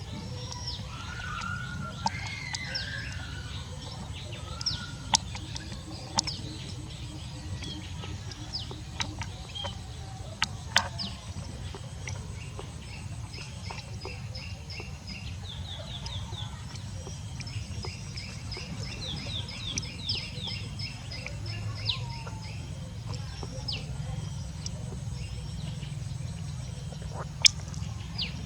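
Birds chirping and calling in short repeated notes, with scattered sharp clicks and a steady low hum underneath.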